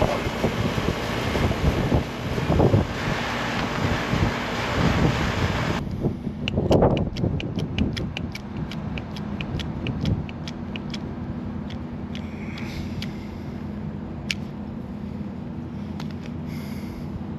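A loud, steady rushing hiss for the first few seconds that stops abruptly. Then comes a run of quick clicks, about four a second for several seconds, from a Hilmar hand swage tool being worked to expand a copper refrigerant tube. A low steady hum runs underneath.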